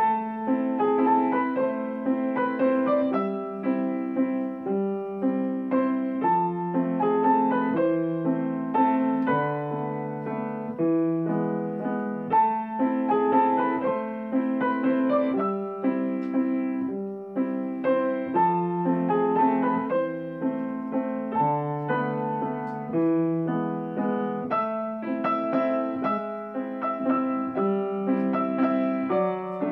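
Piano played four hands by two players, a waltz with melody and chords sounding together, starting suddenly at the outset.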